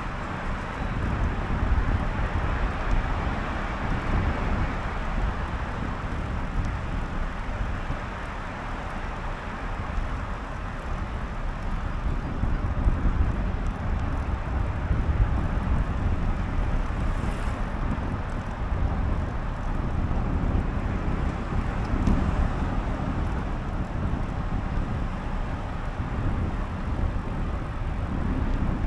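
Steady wind rush on the microphone of a moving bicycle, with road traffic going by alongside.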